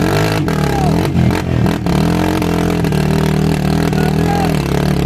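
Yamaha Raptor 700 ATV's single-cylinder engine revving up and down under load, then holding a steadier pitch, with scattered knocks and clatter.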